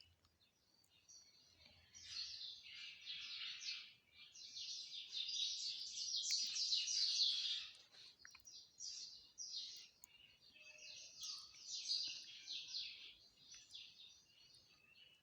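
Small birds chirping and twittering in several bursts of quick, rapid-fire note runs.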